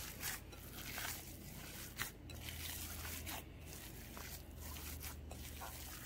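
Hands kneading and squeezing a minced beef and onion seekh kebab mixture in a glass bowl: soft, wet squelching strokes about once a second.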